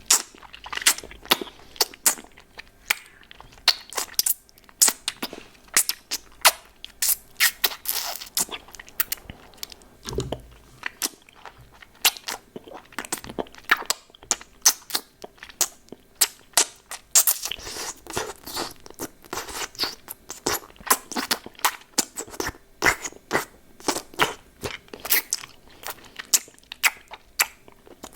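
Close-miked mouth sounds of a hard-candy lollipop being eaten: irregular sharp clicks and crunches, two or three a second.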